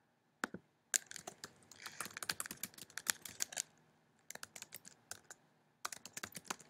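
Typing on a computer keyboard: a single click about half a second in, then a fast run of keystrokes, a short pause, and two more brief runs of keys near the end.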